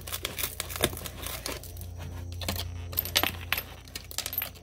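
Shattered mirror glass being pried out of a Jeep ZJ side-view mirror housing with a screwdriver, shards clinking and dropping into a cardboard box in many irregular sharp ticks, over a steady low hum.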